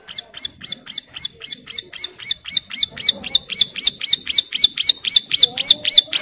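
A ciblek sawah (a prinia) singing a fast, even string of sharp hooked chirps, about five a second, that grows louder over the first few seconds and then holds steady. This is the rapid 'ngebren' song that keepers take as a call to a mate.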